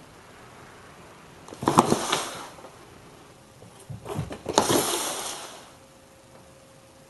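A cat skidding across the floor and knocking into a cardboard box, twice: short bursts of scuffing and scraping, each with a sharp knock, about a second and a half in and again about four seconds in.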